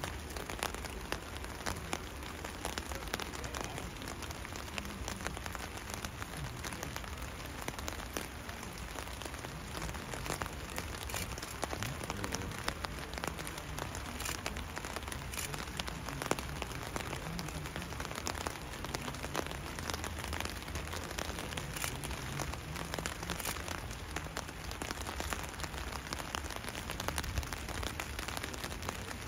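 Steady rain falling, with many small drop clicks over an even hiss and a faint low rumble underneath.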